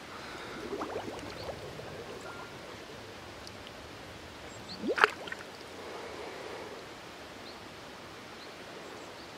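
Shallow rice-paddy water lapping and trickling as a hand gropes in it and lifts out a river snail, with one sharp plop about five seconds in.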